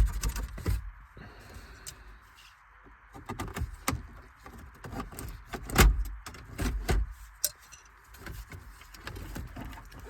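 A plastic dashboard trim cover being pried loose with a trim tool: irregular clicks, knocks and scrapes as its clips give, the loudest knock about six seconds in.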